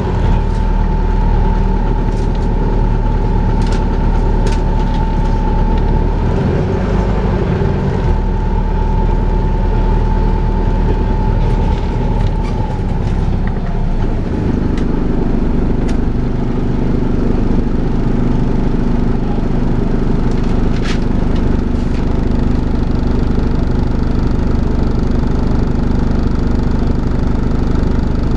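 Volvo B5LH hybrid double-decker bus running, with a steady high whine, the 'hoover' sound, over its drone for about the first half. About halfway the whine stops and a deeper, steadier engine hum takes over, with a few sharp rattles along the way.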